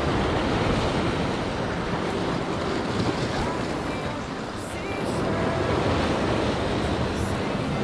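Atlantic surf breaking and washing over a rocky shore, a steady rushing of water, with wind buffeting the microphone.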